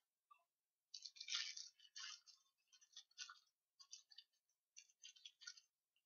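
Faint crinkling of a shiny foil blind-bag packet being squeezed and turned in the hands, a string of irregular rustles and crackles that stops shortly before the end.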